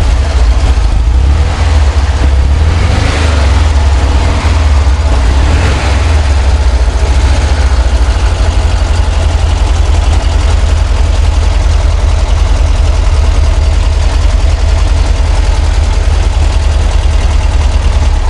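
Volkswagen Kombi van engine running steadily at idle, close to the microphone.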